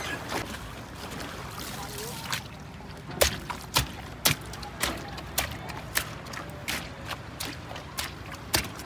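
Water sloshing around wading legs, then bare feet treading on a wet net bag full of jellyfish on a bamboo raft: a run of wet slaps and knocks, about two a second, starting a couple of seconds in.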